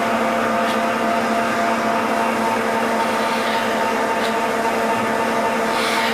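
Steady mechanical hum of water-mill machinery, with a blowlamp hissing as it preheats the hot bulb of a Petter semi-diesel engine before starting. A few faint ticks sound over it.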